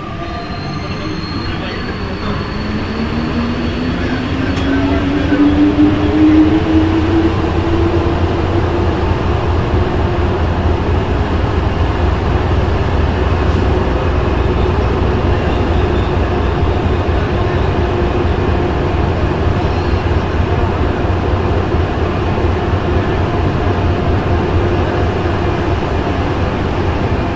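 Santiago Metro NS-93 rubber-tyred train pulling out of a station, heard from inside the car. The traction-motor whine rises in pitch as it accelerates over the first few seconds, then settles into a steady running rumble through the tunnel.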